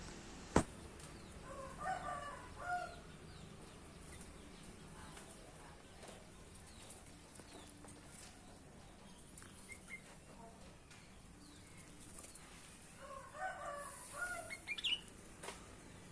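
Sooty-headed bulbul singing in short phrases: one burst about two seconds in and another near the end, with a sharp click about half a second in.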